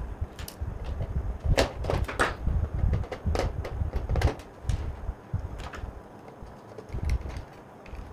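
Hands wiring an electrical test board: sharp clicks and taps of wire ends, terminal screws and a small hand tool, over dull low thumps as the wooden board and table are bumped. The clicks come mostly in the first half and then thin out.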